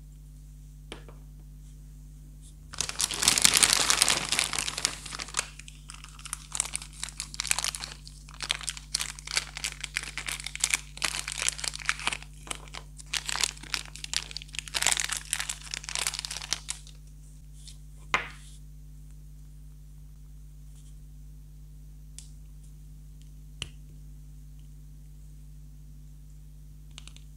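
Clear plastic wrapper crinkling and tearing as a small plastic toy figure is unwrapped: a loud burst of tearing and crinkling about three seconds in, then crinkling off and on until about seventeen seconds. A single click follows, and a few faint ticks near the end.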